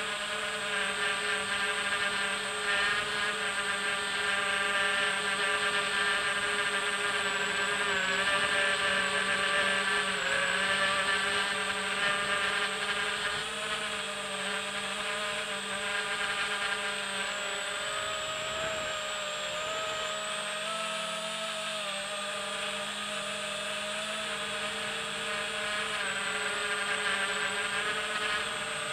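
Electric motors and propellers of a small remote-controlled drone heard from its onboard camera: a steady buzzing whine made of several pitched tones that drift slightly up and down as the throttle changes.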